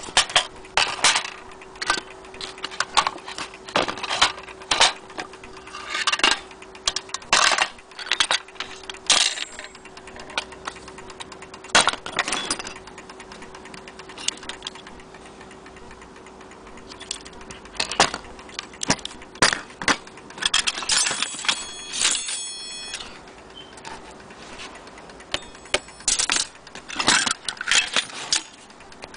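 Vintage mantel clock parts (a clock dial, a brass pendulum bob, winding keys and movement pieces) being handled, giving irregular metal clinks and knocks. A little over two-thirds of the way through, a pitched ringing tone sounds for about two seconds.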